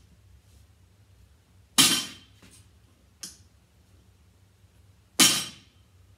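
A barbell loaded with rubber bumper plates set down hard on the gym floor twice during deadlift reps: two loud thuds about three and a half seconds apart, each with a short rattling ring of the plates. Lighter clinks of the plates on the bar come between them as it is lifted again.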